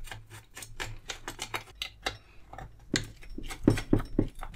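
A nut driver turning a small nut on the underside of a 1938 STC 830 valve radio chassis, making a quick run of metallic clicks that get louder about three seconds in as the nut holding an IF transformer cover is undone.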